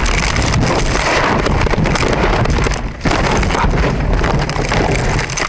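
Car rolling over: a loud, continuous jumble of impacts, rattling and scraping as the body tumbles, with a brief lull about three seconds in.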